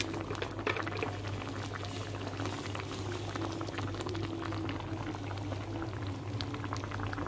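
A pot of thick goat-head curry (gulai) bubbling at a steady boil, with dense small bubble pops throughout over a steady low hum.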